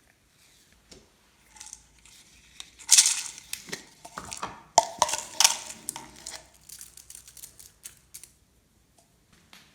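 Glossy slime being worked by hand, giving a run of sticky clicks, pops and crackles, loudest from about three to six seconds in and thinning out toward the end.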